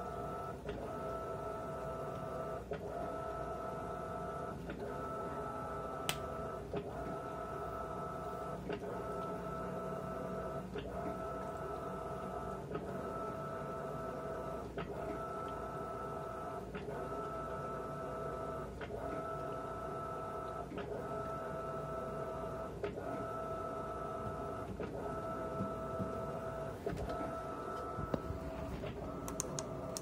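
Electrolux 17 kg top-load washing machine agitating a heavy blanket in water. Its motor gives a steady whine that breaks with a click about once a second as the agitator changes direction.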